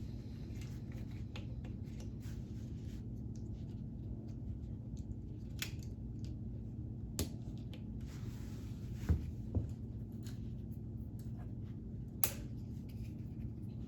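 Plastic K'nex parts clicking and snapping together as wheels are fitted back onto the model: scattered light clicks with a few sharper snaps, over a steady low hum.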